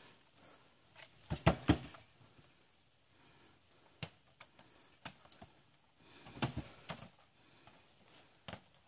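Green coconuts knocking and thudding as they are dropped into a metal-framed cart. There is a cluster of knocks about a second in and another about six seconds in, with single knocks in between.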